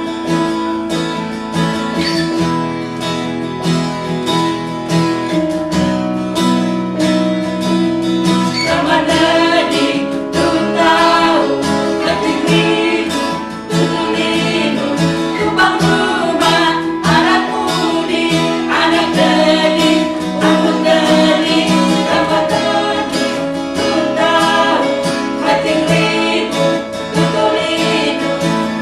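Congregational worship song in Kelabit: strummed acoustic guitar over steady held keyboard chords, with women's voices singing the hymn from about eight seconds in.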